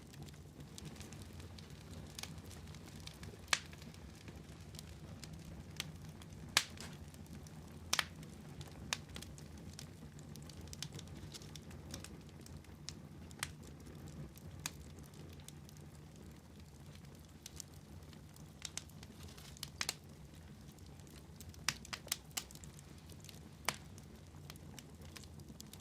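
Wood fire crackling in a fireplace: irregular sharp pops and snaps, a dozen or so, the loudest a few seconds in and near the end, over a low steady rumble of the burning fire.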